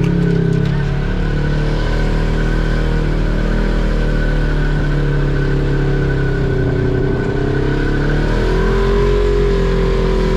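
Side-by-side UTV engine running under load on a climb, its pitch rising and falling with the throttle and swelling about eight seconds in, with a steady high whine over it.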